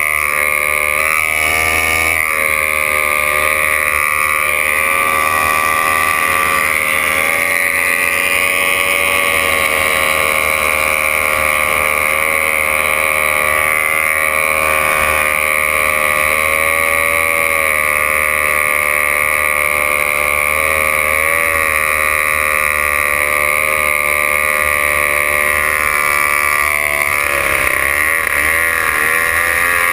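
Racing outboard engine of a C-class racing hydroplane running hard at high revs, heard close up from on board the boat. The note is steady but wavers in pitch a few times, with a brief dip and recovery near the end.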